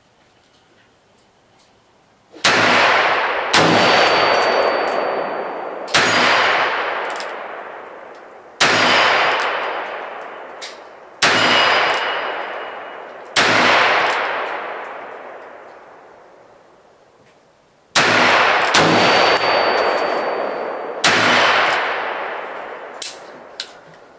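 Smith & Wesson 686 Plus .357 Magnum revolver fired in a slow string: nine sharp reports spaced one to four seconds apart, each trailing off in a long echo. A thin ringing tone lingers after two of the shots.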